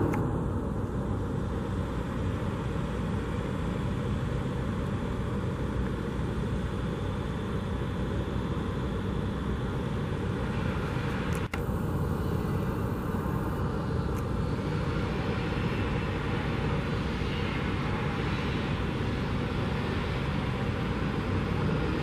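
Steady outdoor background noise, an even low rumbling haze with no distinct events, that drops out for an instant about eleven seconds in.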